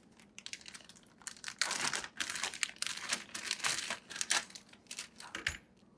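Clear plastic bag crinkling and rustling in irregular bursts as it is opened and a bundled cable is pulled out, strongest from about a second and a half in. A soft low knock comes near the end.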